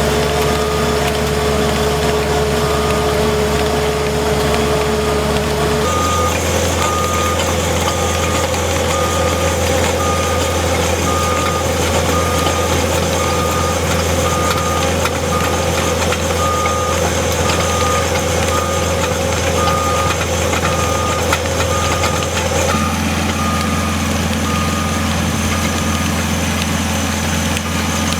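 Skid steer loader's engine running steadily while the machine reverses pulling a trencher, its backup alarm beeping about once a second. The engine note changes about six seconds in and again near the end.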